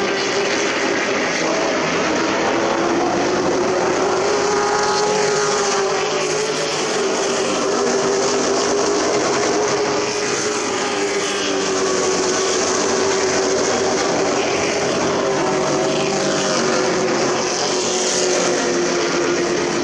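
Several racing super trucks' engines running at speed on the oval, a steady drone whose pitch wavers up and down as the trucks lap.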